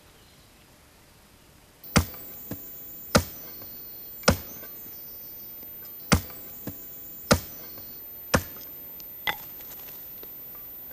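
Steel blade of a folding shovel chopping down into grassy turf: seven sharp strikes, about one a second, beginning about two seconds in.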